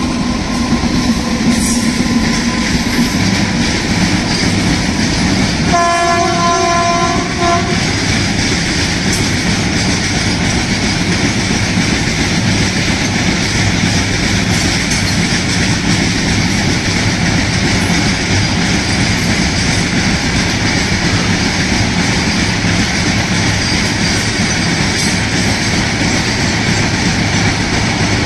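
Freight train of covered wagons hauled by twin electric locomotives rolling past and onto a steel truss bridge: a steady, loud rumble and clatter of wagon wheels on the rails. A train horn sounds once for about a second and a half around six seconds in.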